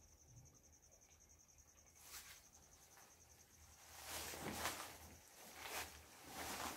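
A cricket chirping in a steady, rapid high trill. From about two seconds in, it is joined by several louder rustling scuffs.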